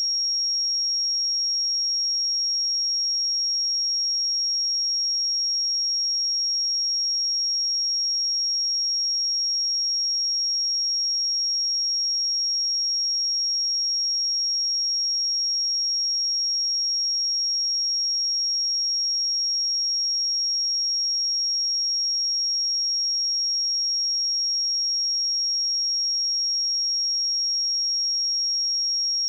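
Steady 5586 Hz sine-wave test tone: one pure, high-pitched note held at constant pitch and level.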